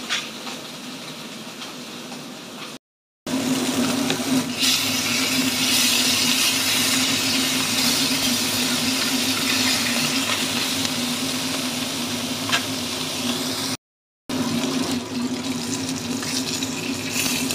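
Fish frying in hot oil in a non-stick pan: a dense, steady sizzle that grows louder after about three seconds in, over a steady low hum.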